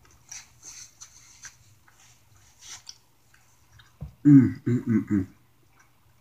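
Close-up mouth sounds of a man chewing pizza, faint and clicky, then about four seconds in a short string of four closed-mouth "mmm" hums of enjoyment, the loudest sound.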